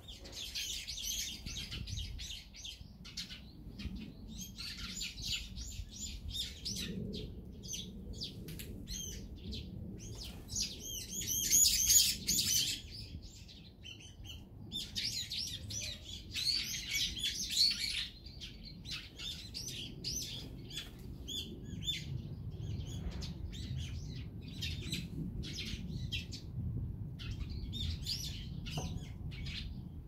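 A flock of small songbirds, sparrows among them, chirping and twittering in quick overlapping bursts, loudest about twelve seconds in.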